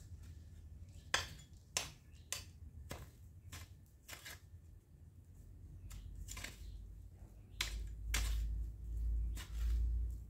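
Sharp clicks and snips from a hand garden tool working at a shrub, coming irregularly about once a second. A low rumble rises in the second half and is the loudest sound there.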